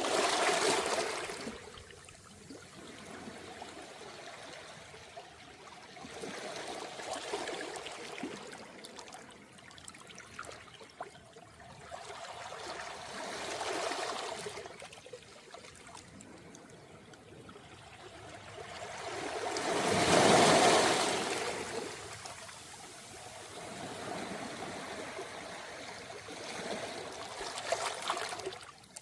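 Calm waves washing up a round-pebble (mongdol) beach and draining back, swelling and fading about every six to seven seconds, five times; the wave about two-thirds of the way through is the loudest.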